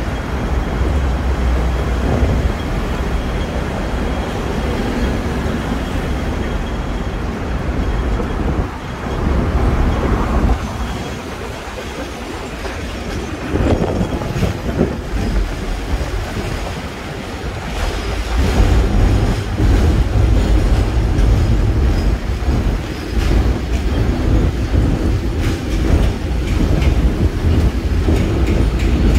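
Hong Kong double-decker electric tram No. 120 running along street track, heard from its upper deck: a steady low rumble of motors and wheels with clacking over the rail joints. It eases off in the middle and rumbles louder again from about two-thirds through.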